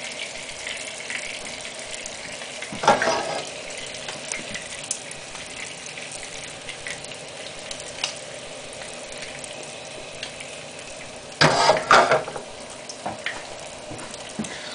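Pancake batter sizzling with a faint crackle in a hot nonstick skillet over a gas burner. A louder clatter comes about three seconds in and again near the end, as the pan is handled.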